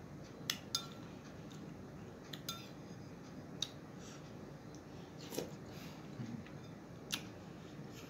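Eating utensils clinking against a plate or dish: several short, sharp clicks at irregular intervals, the loudest two close together about half a second in.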